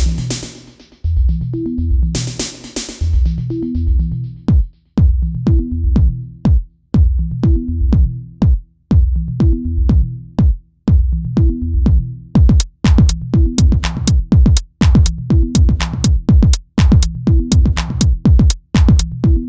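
Background electronic dance music with a drum-machine beat and a repeating bass line; the hi-hats get busier about two-thirds of the way through.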